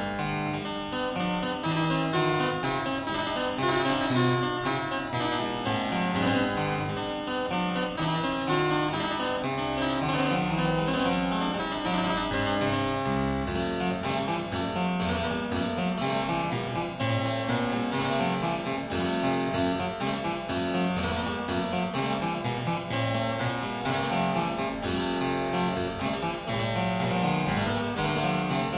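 Background keyboard music, harpsichord-like, playing continuous quick runs of notes.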